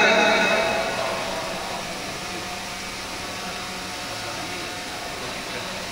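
A man's chanted Quran recitation ends a phrase over a PA system, its echo dying away within about a second, leaving a steady hiss with a low hum.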